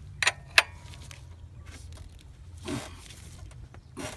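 A metal wrench clicking against the fuel-line nut as it is snugged onto a high-pressure fuel pump: two sharp clicks a third of a second apart, a soft rustle partway through, and another click near the end.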